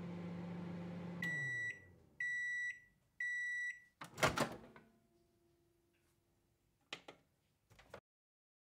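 Microwave oven running with a low hum that winds down as it stops, then three high done-beeps about half a second each. Just after the beeps comes a loud clunk as the door is opened, followed by a couple of small clicks.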